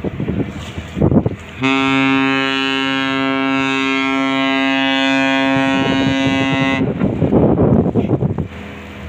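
Container ship's horn sounding one long, steady low blast of about five seconds. Gusts of wind buffet the microphone just before and after it.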